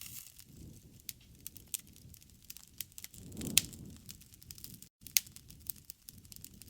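Wood campfire crackling: sharp pops and snaps scattered irregularly over a low rush of burning, which swells about three and a half seconds in under the loudest pop. The sound cuts out for an instant near five seconds.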